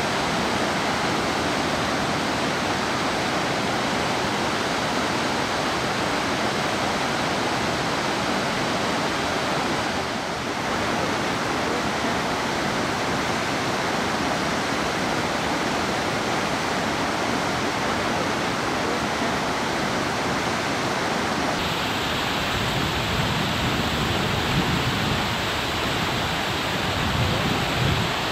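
Mountain stream rushing and splashing over boulders in small cascades, a steady noise of white water. Its character shifts abruptly about two-thirds through, with more hiss and more low rumble.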